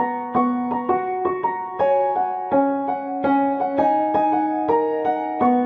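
Background piano music: a melody of single struck notes, each fading away, about two to three notes a second.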